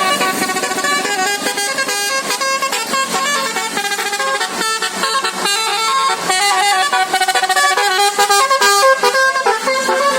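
Bus 'basuri' telolet musical air horn playing a loud melody of quick, stepped notes.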